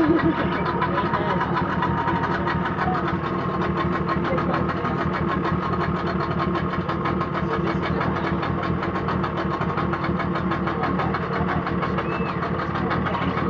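Boat engine running steadily at an even speed throughout.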